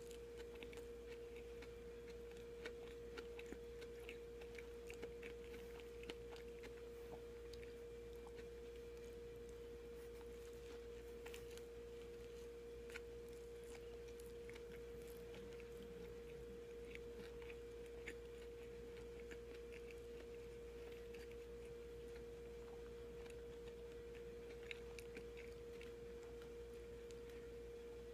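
Quiet chewing of a soft bread sandwich, with small scattered mouth clicks, over a steady humming tone that runs throughout.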